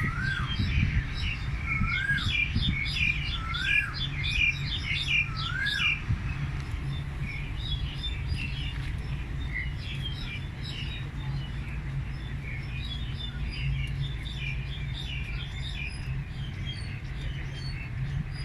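Several wild birds singing and chirping together. In the first six seconds one bird repeats a short rise-and-fall whistle about every second and a half, then quick high chirps from several birds carry on. A steady low rumble runs underneath.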